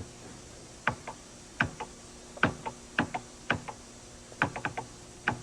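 Keys being typed on a Radio Shack TRS-80 computer keyboard: about fifteen separate clicks at an uneven pace, many coming in quick pairs, as the time is entered.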